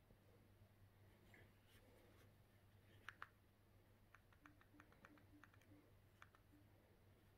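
Near silence with faint clicks: a pair about three seconds in, then a quick run of about ten over the next two seconds, as the on-screen channel list is paged through. These fit buttons on a TV remote control being pressed.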